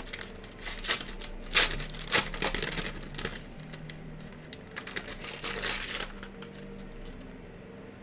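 Foil wrapper of a Panini Origins basketball card pack being torn open and crinkled by hand, in quick crackling bursts that die away about six seconds in.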